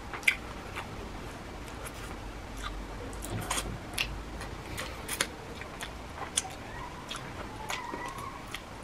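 Eating sounds close to the microphone: irregular wet clicks and smacks of chewing and of licking sauce off fingers.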